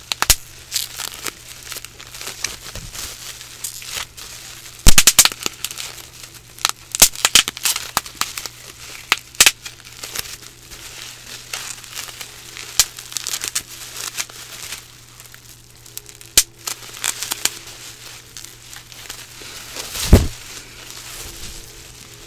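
Plastic bubble wrap being popped by hand close to a microphone: irregular sharp pops, singly and in quick clusters, amid the crinkling of the sheet. The loudest pops come about five seconds in and again near the end.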